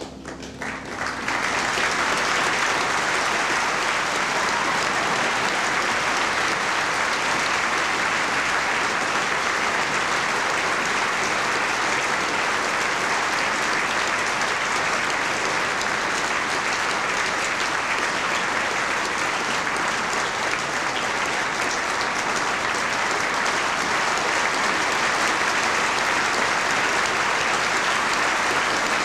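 Large audience applauding, swelling over the first second or two and then holding steady.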